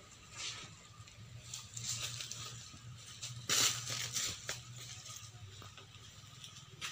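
Scattered rustling and crunching, the loudest crunch about three and a half seconds in, with a faint low hum underneath.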